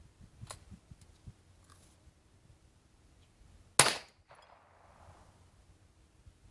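A single .22 long rifle shot, a short sharp crack, fired from a 20-gauge H&R single-shot break-action shotgun through a Short Lane .22 LR chamber adapter, a little under four seconds in. A small click about half a second in comes before it.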